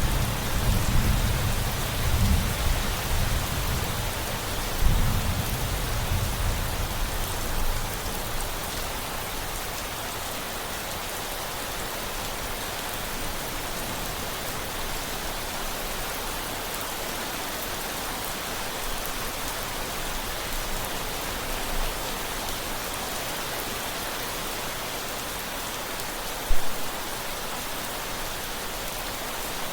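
Steady rain with a low rumble of thunder over the first several seconds that fades away, leaving the rain alone; one brief low thump near the end.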